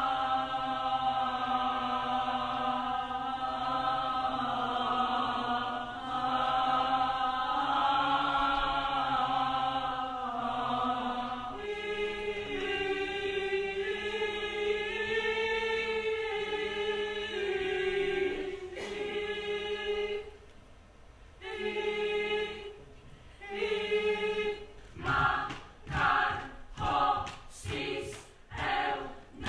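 A group of voices singing without instruments, holding long notes together in several parts. About twelve seconds in, the singing narrows to one held line with short breaks. Near the end it turns into short sung notes in a steady rhythm, about one and a half a second.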